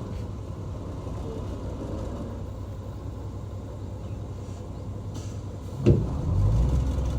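Heavy earthmoving machine's diesel engine running steadily and low. About six seconds in there is a sharp knock, after which the engine grows louder.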